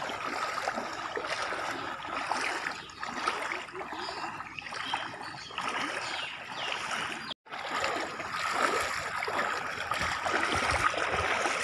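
Several people wading through shin-deep floodwater, their legs sloshing and splashing the water with each stride; the sound breaks off for a moment about seven seconds in.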